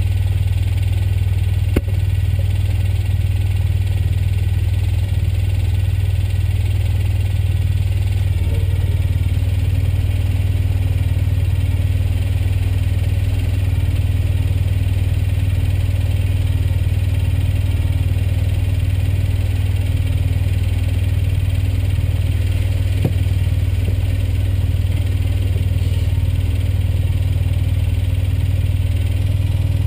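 An engine idling steadily, a low even hum that holds through the whole stretch; a fainter steady tone joins it about nine seconds in.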